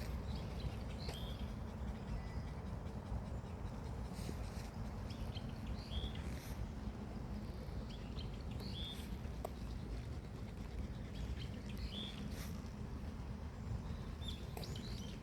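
Small birds chirping, short calls every second or two, over a steady low rumble.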